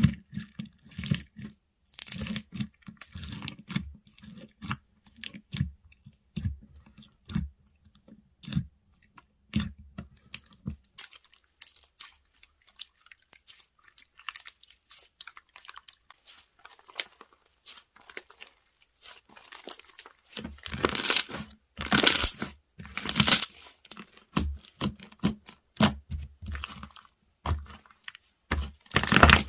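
Foam-ball slime being squeezed and pressed by hand, giving a stream of irregular crunching and crackling pops. It is quieter in the middle and gets louder in clusters in the last third.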